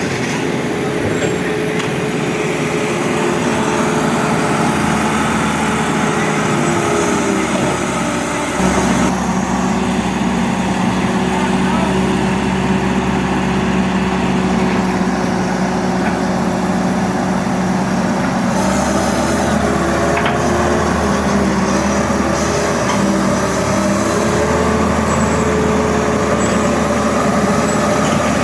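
Heavy-equipment diesel engine running steadily, its engine speed stepping up about nine seconds in and changing again around nineteen seconds.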